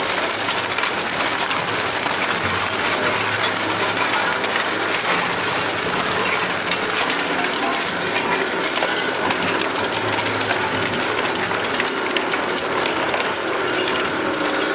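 Industrial shredder's rotating hooked cutter discs tearing and crushing scrap sheet metal: a continuous grinding with dense metallic clanks and rattles.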